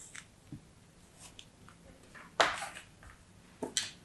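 Moldable kinetic sand being scraped off a plastic cutter with a spatula and broken up by hand: a few short, crisp crunching and crumbling sounds, the loudest about two and a half seconds in and another couple near the end.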